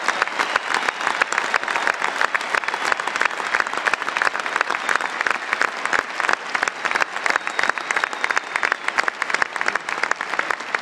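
Large arena crowd applauding, with dense, sharp clapping.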